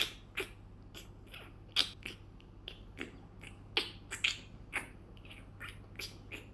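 An irregular run of short, soft clicks and taps, about three a second.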